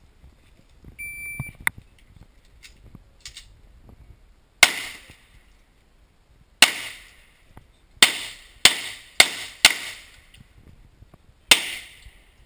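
Shot timer's start beep, held for under a second, then handgun shots: two single shots about two seconds apart, a quick run of four, and one more near the end, each with a short echo off the surrounding block walls.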